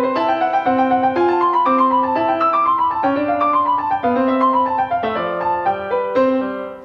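Background music: a piano playing a steady run of short notes, about four a second, in a flowing melody.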